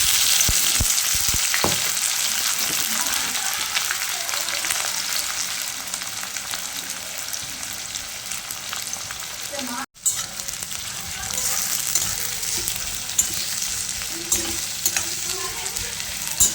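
Food sizzling in hot oil in a pan while being stirred: a steady crackling hiss with scattered clicks and scrapes of a spatula against the pan. It breaks off for an instant about ten seconds in.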